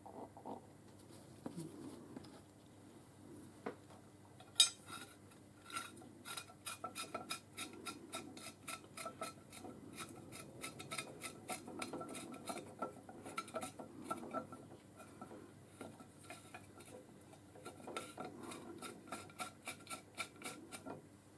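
Faint metallic clicking as a bolt is screwed into a steel hinge bracket and tightened with a ratchet spanner, a few clicks a second in two runs. One sharp metal clink about four and a half seconds in is the loudest sound.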